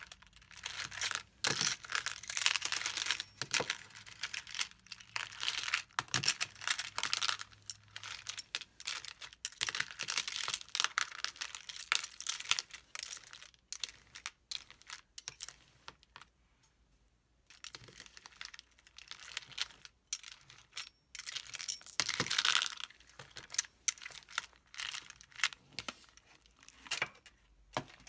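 Metal spoon stirring and pressing white slime packed with small plastic ring beads in a plastic bowl: dense crackling and clicking as the beads knock together and the slime crinkles. It eases off for a few seconds around the middle.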